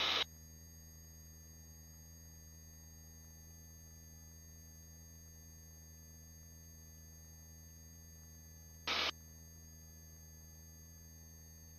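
Steady low hum with faint fixed tones on a helicopter's headset intercom line while the voice-activated microphones are shut. About nine seconds in, a microphone briefly keys open with a short burst of noise.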